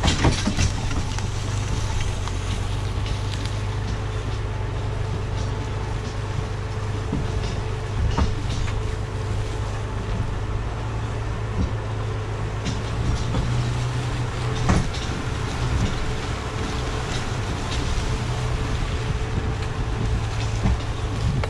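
Jeep Cherokee driving slowly on a woods trail, its engine running in a low, steady drone while towing a log arch loaded with a heavy oak log, with a few knocks and rattles from the rig.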